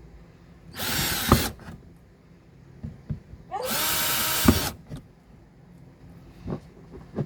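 Power drill boring mounting holes into a boat: two short runs of about a second each, the second spinning up to a steady motor whine, with a few light knocks between them.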